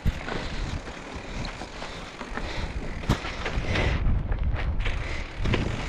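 A gravel bike pushed up a loose, rocky dirt track: tyres crunching over gravel, with a few sharp knocks and wind rumbling on the microphone.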